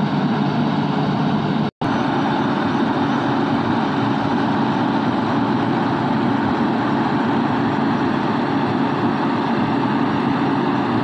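Heavy diesel engine of an excavator running steadily, with a brief total break in the sound about two seconds in.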